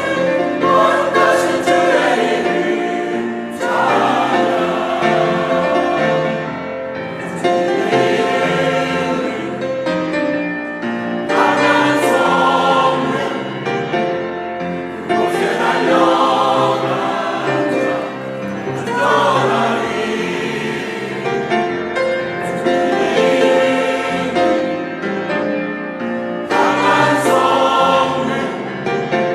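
A church choir singing a worship song, phrase after phrase with long held notes.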